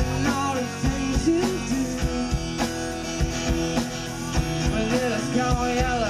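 Live band playing a song: a singer's voice over strummed acoustic guitar, electric guitar, electric bass and a drum kit keeping a steady beat.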